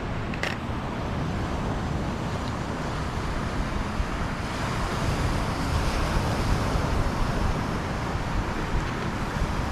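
Steady wind buffeting the microphone over the wash of surf, with a brighter hiss swelling around the middle.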